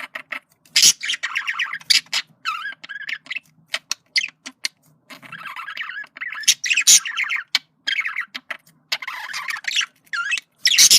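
Male budgerigar warbling: a fast chattering run of wavering chirps, squawky notes and sharp clicks in several bouts with short pauses between them.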